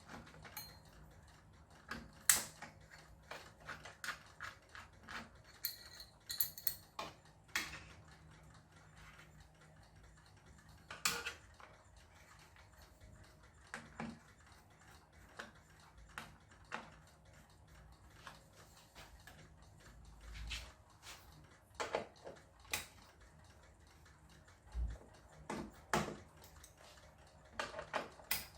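Scattered small clicks, taps and knocks of hand tools and metal and plastic TV parts being handled while the set is being taken apart, coming irregularly every second or two with quiet between.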